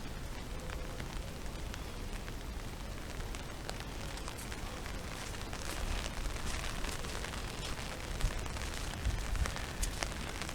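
Steady rain falling, with many sharp ticks of single drops hitting nearby surfaces and a low rumble underneath.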